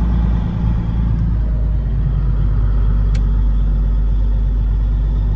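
Steady engine drone and road rumble inside a moving semi-truck's cab, with a single brief click about three seconds in.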